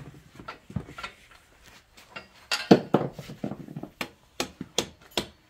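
A hammer striking a bolt used as a drift against a motorcycle's rear axle, driving the axle back through the wheel hub. About a dozen sharp metal-on-metal strikes at uneven intervals, some in quick pairs.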